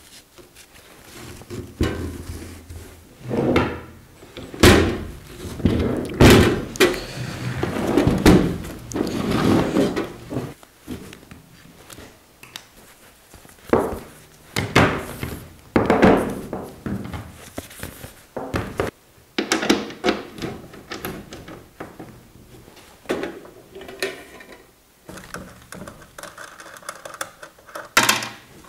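Handling sounds of a small flux-core welding machine and its accessories on a wooden workbench: a string of irregular knocks and thunks, with rustling from the carrying strap and torch cable, and the side cover being opened and the wire spool handled.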